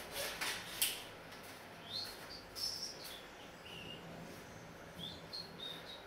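A few sharp clicks in the first second, then short high bird chirps, single notes and little pairs, repeated irregularly through the rest.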